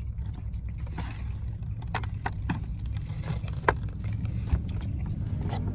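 Steady low rumble, with scattered light clicks and taps.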